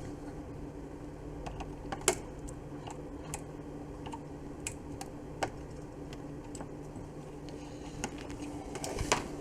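Scattered light plastic clicks and taps as the sewing machine's fuse holder is worked out of its socket on the back, over a steady low hum.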